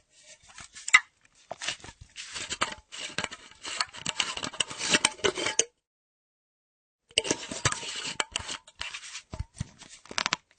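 Screw cap of a half-empty metal flask being worked open and shut, with metal scraping and clicking on the threads. It comes in two bouts, separated by a pause of about a second and a half just past the middle.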